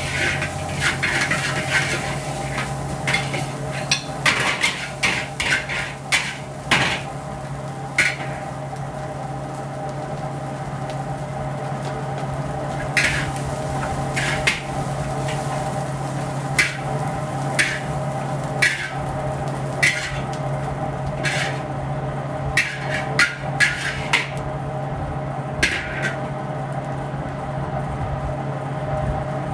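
Metal ladle and spatula clanking and scraping against a large carbon-steel wok as fried rice is stir-fried and then scooped out. There is rapid, dense scraping for the first several seconds, then scattered single knocks. A steady mechanical hum runs underneath.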